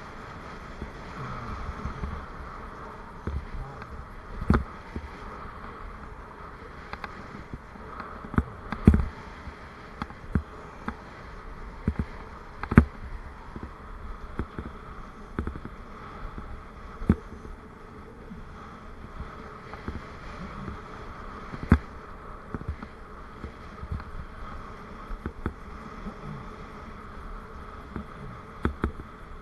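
Riding noise from a bicycle picked up by a bike-mounted camera: a steady hum of tyres and wind, broken by many sharp knocks and rattles as the bike goes over bumps in the road, the loudest about nine and thirteen seconds in.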